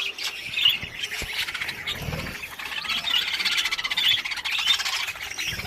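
Lovebirds chattering: a dense, continuous mix of rapid high-pitched chirps and squeaks from several birds at once.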